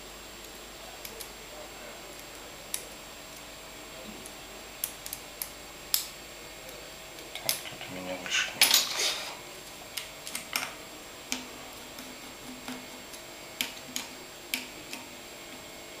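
Small metal and plastic parts of a fishing reel clicking and tapping as it is put back together by hand, with a denser run of clicks and scraping about eight seconds in.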